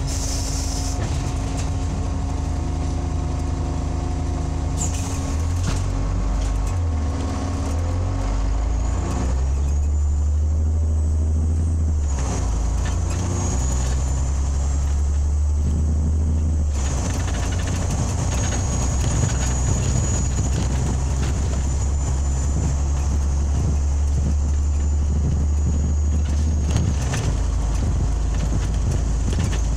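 Scania OmniLink CL94UB city bus driving, heard from inside: the engine's low drone changes pitch several times as the bus speeds up and shifts gear, with a high whine over it. A short hiss of air comes at the very start.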